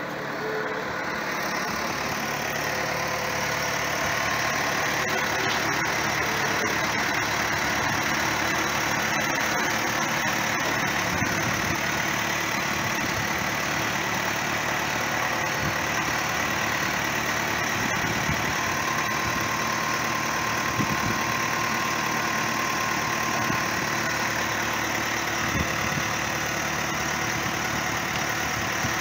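Telehandler's diesel engine running steadily, growing louder over the first few seconds.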